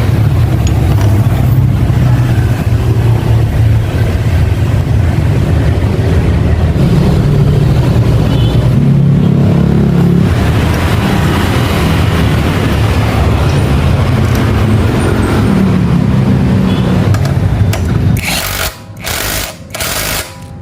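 An engine running with a steady low rumble, its pitch rising slightly a few times. Near the end it breaks into short bursts with gaps between them.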